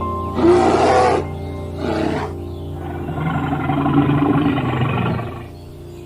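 A big cat, lion or tiger, roaring over background music: two short roars, then a longer, lower growl.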